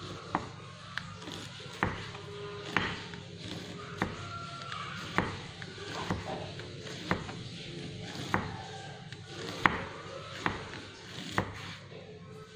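Chef's knife slicing a banana blossom into thin shreds on a wooden cutting board: about a dozen sharp knocks of the blade striking the board, irregularly spaced, roughly one every second or less.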